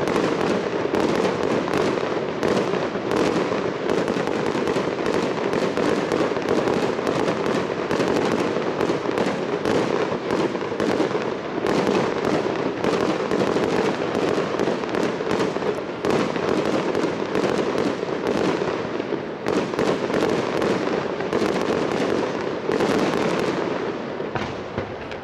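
A fireworks display: aerial shells bursting in a dense, continuous barrage of bangs and crackling, many per second, easing off near the end.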